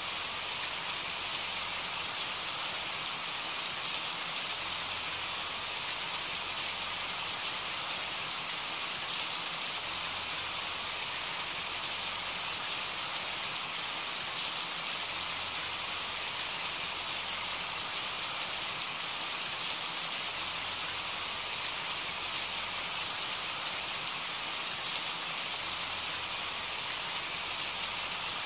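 Steady rain falling: an even hiss with occasional sharper drop ticks.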